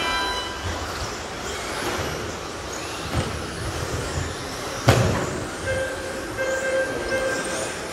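Radio-controlled model trucks racing on an indoor carpet track: motors whining and tyres running on the carpet, with a sharp knock just before five seconds in, all echoing in a large hall.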